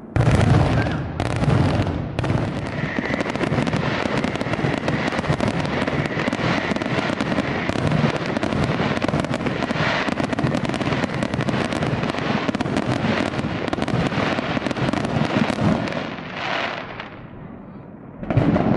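Aerial firework shells bursting in a rapid barrage. Two loud bangs open it, then near-continuous overlapping bangs for about fourteen seconds, which thin out before one more loud bang near the end.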